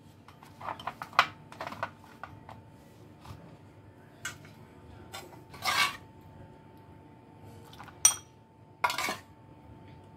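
A spoon clinking and scraping against a metal pot and ceramic bowls as boiled peas and potato are dished out: scattered clinks and short scrapes, with a sharp ringing clink about eight seconds in.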